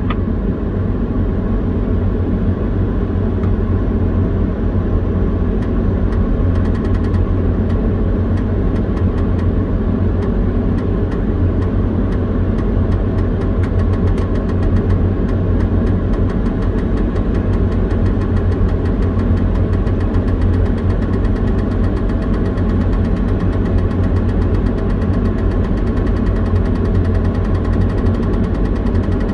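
Liebherr LTM 1250-5.1 mobile crane's diesel engine running steadily, heard inside the operator's cab as a constant deep hum. A faint, fast ticking joins it from about seven seconds in.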